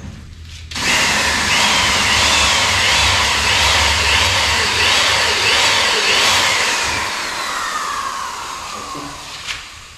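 Power drill driving a screw into the door frame, starting about a second in with its pitch rising and falling in a regular wobble, then sliding down over the last few seconds as the motor slows.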